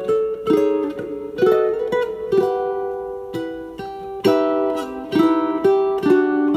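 Flight Victoria tenor ukulele played solo, fingerpicked chords and melody notes at a slow tempo, with a few notes left to ring out for a second or so before the next attacks.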